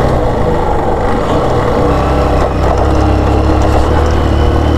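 Motorcycle engine running steadily while riding, with a continuous low drone.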